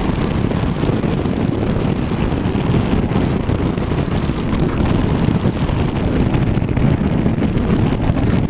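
Steady wind buffeting the microphone, a loud low rumble with no breaks.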